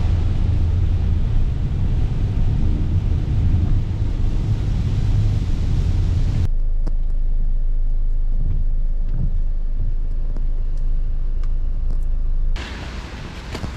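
Steady loud low rumble. About six and a half seconds in it cuts abruptly to a quieter low hum with a few faint clicks, and it changes again near the end.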